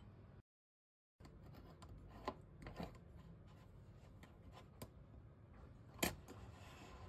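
Bialetti Moka Express aluminium stovetop coffee pot being screwed together by hand: light metallic clicks and scraping as the upper chamber is twisted onto the base, with one sharper clack about six seconds in.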